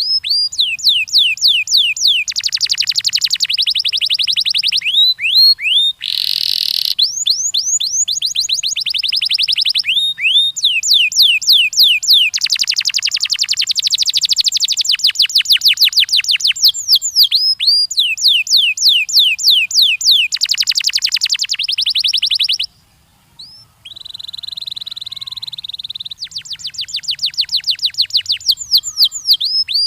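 Domestic canary singing: long, fast trills of repeated down-slurred notes, changing from one trill to the next. There is a harsh buzzy note about six seconds in, a short pause in the middle of the clip, then a steady held whistle before the trills resume.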